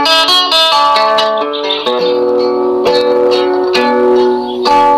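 Background instrumental music played on plucked strings, a melody of ringing notes.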